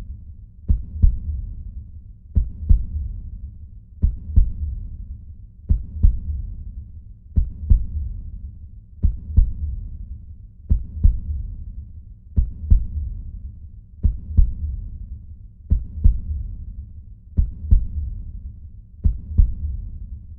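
Heartbeat sound effect: a slow, steady lub-dub, two low thumps close together, repeating about every second and a half over a low rumble.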